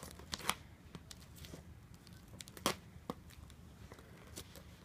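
Folding pocket knife slitting packing tape on a small cardboard box: scattered scratches and clicks of the blade on the tape and cardboard, the sharpest about half a second in and near the middle.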